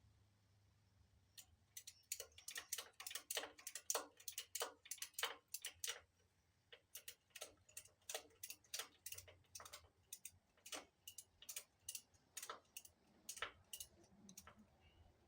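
A long run of sharp, separate clicks, about two to four a second with short pauses, starting a second and a half in and stopping shortly before the end.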